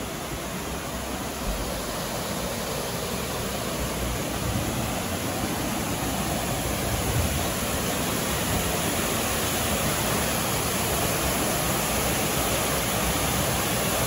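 Waterfall pouring off a rock ledge into a pool: a steady rushing, splashing hiss that grows gradually louder as the source gets nearer.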